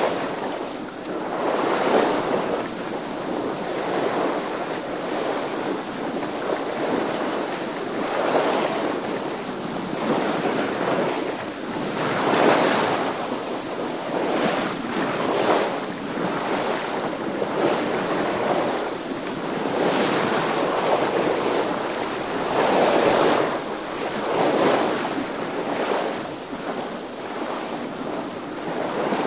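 A sailing boat moving through water, with water rushing and splashing along the hull in surges that rise and fall every few seconds. Wind sounds under the water noise.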